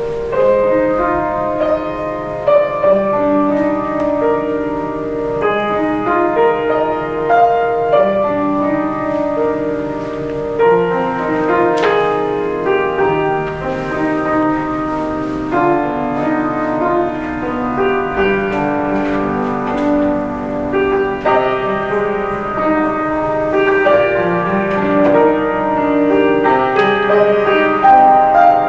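A grand piano plays a hymn prelude in held, overlapping chords with a melody on top.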